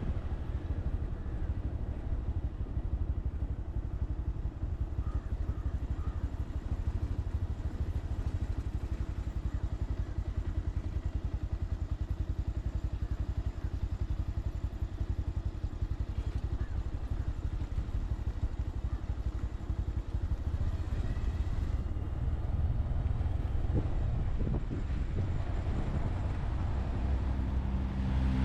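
Motorcycle engine running steadily while riding, a constant low rumble that grows louder near the end.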